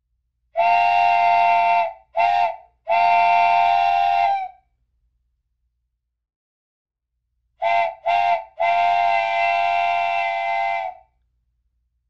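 Steam train whistle sounding several tones at once, blown in two groups: long, short, long, then after a pause of about three seconds short, short, long.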